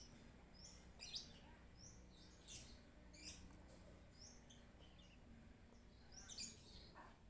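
Faint bird chirps: short, high calls, one every second or so.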